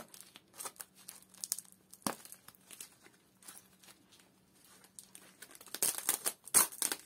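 Thin plastic wrap and a plastic cup crinkling and tearing as they are peeled off a potted seedling by gloved hands, in short scattered crackles, loudest near the end.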